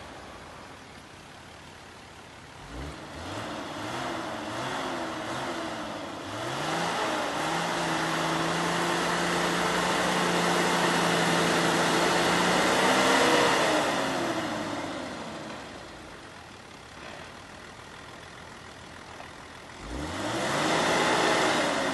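Toyota Land Cruiser LJ70's four-cylinder diesel engine revving hard as it pushes through deep snow, tyres spinning and throwing snow. After a few short blips the revs climb and are held high for several seconds, fall away, then rise sharply again near the end.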